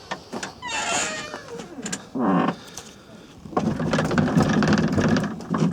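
Worn door hinge on a 1991 Chevrolet Scottsdale pickup creaking as the door is swung. There is a short rising squeal about a second in, a brief squeak near two seconds, and a long rasping creak of about two seconds near the end. The hinge pin has lots of play in it.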